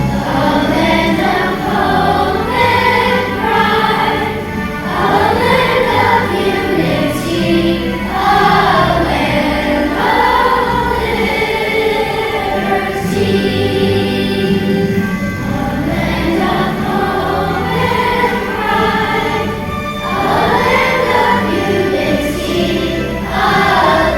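A choir singing a song over a musical accompaniment, the voices holding long notes.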